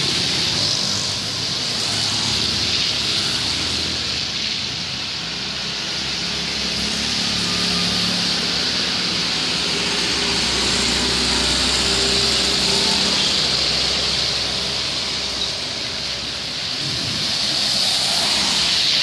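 Steady hiss of heavy rain and tyre spray on a wet road, with motor scooters and other vehicles passing, their engines swelling and fading; a deeper vehicle rumble rises and falls in the middle.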